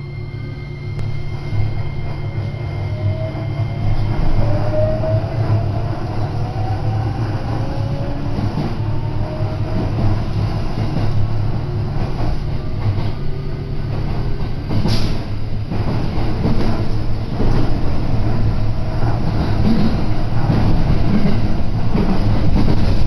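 Electric commuter train pulling away and running along the line, heard from inside the carriage: a low steady hum and rumble of the wheels on the rails, with a motor whine that rises in pitch over the first several seconds as the train speeds up. A single sharp clack sounds about fifteen seconds in.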